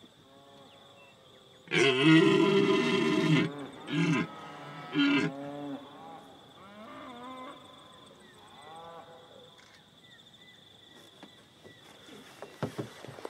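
A large animal calling: one long, loud, low call about two seconds in, then several shorter, fainter calls.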